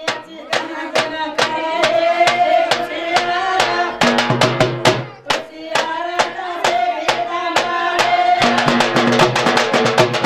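Women singing a traditional Banjara wedding song (lagna geet), a wavering melody in phrases with short breaks between them, over a steady percussion beat of about four strokes a second that grows busier near the end.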